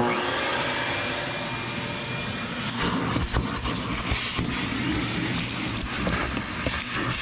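Shop vac starting up and running steadily, its motor pitch settling over the first second or two. From about three seconds in, scattered clicks and rattles of debris being sucked up the hose.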